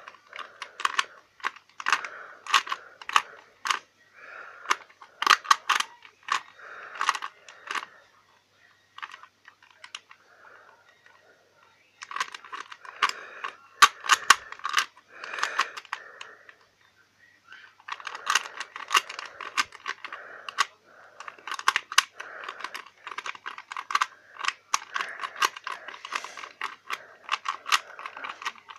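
Plastic Rubik's cube being turned quickly: a rapid clatter of layer turns in runs of several seconds, broken by pauses of about two to four seconds.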